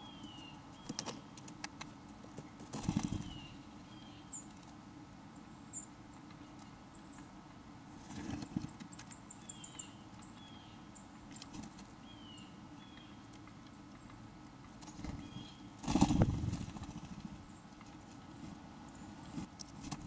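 Small birds calling throughout: short, high, downward-sliding chirps, with a quick run of very high notes about nine seconds in. Three loud, dull thumps come about three, eight and sixteen seconds in, the last the loudest, from a blue jay pecking and handling peanuts right at the microphone.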